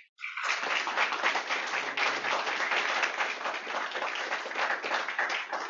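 Audience applauding: a dense patter of many hands clapping that thins out near the end.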